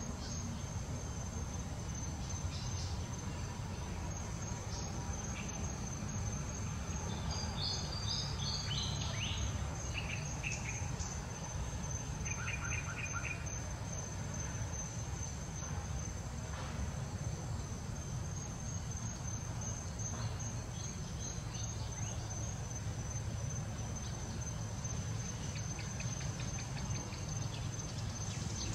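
Steady high-pitched insect drone over a low, constant background rumble, with a short falling run of chirps and a quick trill of bird-like calls in the middle.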